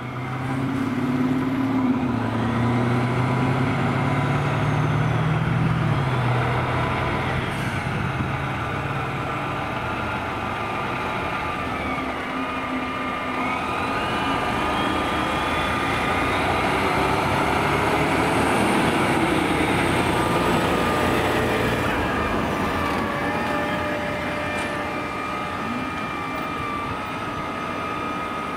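Pierce tractor-drawn aerial ladder fire truck pulling out on an emergency call: its diesel engine is loudest in the first few seconds, and a siren wails, rising and falling in pitch, as it drives away.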